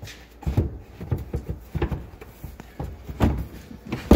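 A Polaris RZR seat being set back into place over the battery: irregular knocks and rattles, ending in one sharp clunk.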